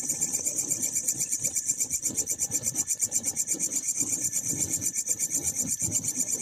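Insect stridulating: a fast, even, rasping pulse that repeats without a break.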